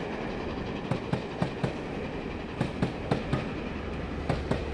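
Passenger coaches of a steam-hauled train rolling past at speed: a steady rumble with repeated sharp clicks, often in quick pairs, as the wheels pass over the track joints.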